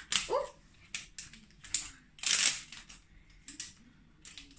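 Printed wrapping on a plastic toy egg crinkling and tearing as it is peeled off by hand, in about half a dozen short crackles with quiet gaps between them.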